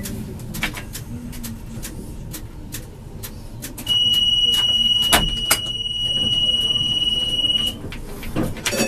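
Tram door-closing warning: a single steady high beep that starts about four seconds in and stops about four seconds later. Under it runs the low hum of the standing tram, with scattered clicks.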